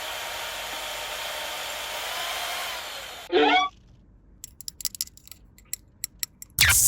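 A steady whirring hiss, like a small motorized tool running, that cuts off suddenly about three seconds in; then a brief high squeak and a scatter of soft clicks, with a loud burst of noise at the very end.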